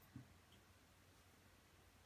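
Near silence with a faint steady low hum and one soft, low thump shortly after the start.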